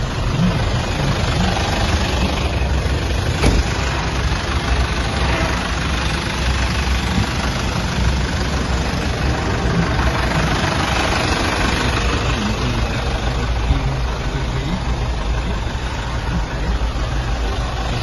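Diesel engine of a 2015 Isuzu 1.9-tonne light truck idling steadily.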